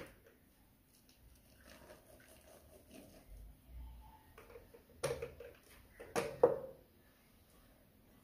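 Faint rustling as chopped nuts are poured from a small glass cup into flour in a white glass mixing bowl, then three sharp knocks of the glass cup, one about five seconds in and two close together a second later.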